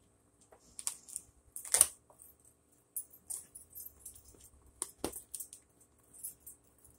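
Cardboard shipping box being opened by hand: scattered clicks, scrapes and rustles of cardboard and tape, with two sharper knocks, the louder about two seconds in and another about five seconds in.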